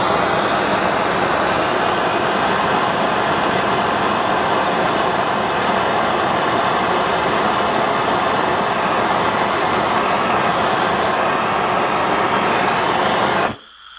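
Handheld butane torch burning with a loud, steady hiss that cuts off suddenly near the end, its flame melting a nylon drive cord out of a power antenna mast.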